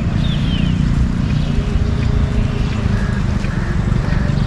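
Steady rushing of a rain-swollen river with wind buffeting the microphone, a deep rumble under a hiss of water. A few short, high falling chirps come near the start.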